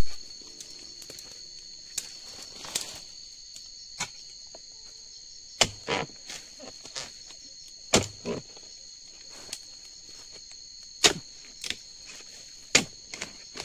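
A pole-mounted harvesting chisel chopping again and again into the stalk of a ripe oil palm fruit bunch to cut it loose. About ten sharp, irregular strikes come a second or two apart, several in quick pairs, over a steady high insect buzz.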